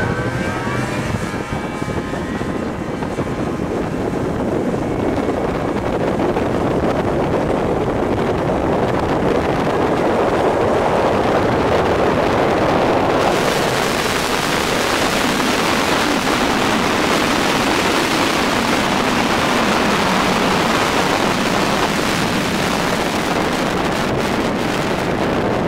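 Kitfox 3 floatplane's Rotax 670 two-stroke engine at full takeoff power, its pitch rising as it revs up at the start, as the plane runs across the water and climbs away overhead. A hiss of wind on the microphone comes in suddenly about halfway through.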